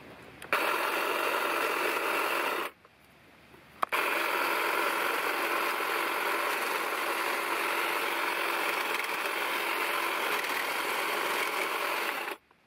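Black+Decker 18V cordless hedge trimmer running, its blade buzzing steadily as it cuts through thin stems. About two and a half seconds in the motor stops for a second; a click follows and it starts up again and runs steadily until just before the end.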